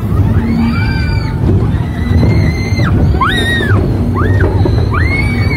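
Tilt-a-Whirl riders giving five high-pitched cries, each rising and falling, over the steady low rumble of the spinning ride.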